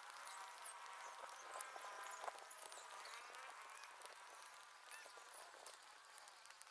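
Faint outdoor ambience with quiet, distant animal calls, clustered in the first few seconds, over a thin hiss.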